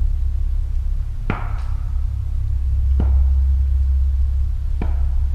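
Three loud, sharp tree knocks, evenly spaced about every second and three quarters, each with a short ring in the woods, over a steady low rumble on the recorder.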